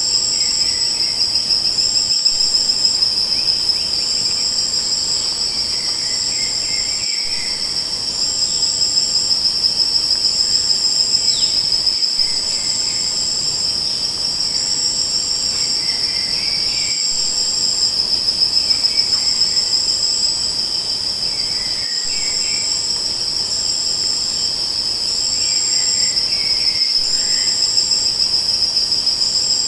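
Crickets or similar insects trilling: one steady, unbroken high trill, with a second, higher trill pulsing on and off about every second and a half. Faint brief chirps come every few seconds.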